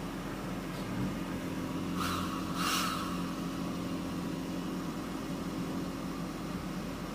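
Toyota Tacoma's 3.5-litre V6 idling steadily, with two short scratchy rustles about two seconds in.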